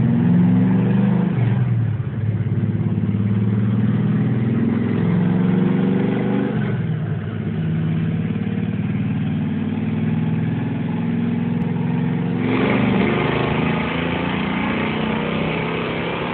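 A 496-cubic-inch stroker V8 in a 1969 Plymouth Road Runner running at idle and being revved, its pitch shifting a few times, with a louder, harsher rev from about twelve seconds in.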